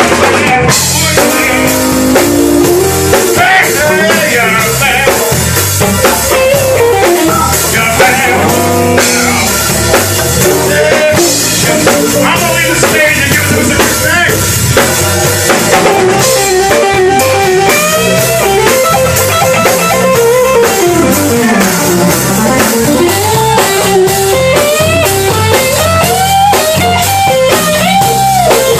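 Blues band playing live: guitar lead with bending notes over bass and a steady drum beat.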